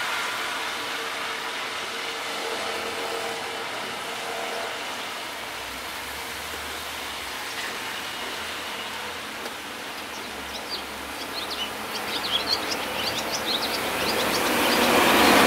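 Steady rain noise with a run of short high chirps from a small bird about ten seconds in, and a rushing noise swelling louder near the end.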